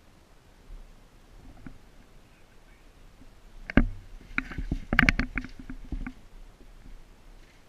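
Airsoft AR-15 electric gun firing: one sharp shot, then a quick, uneven string of about eight shots over a second and a half.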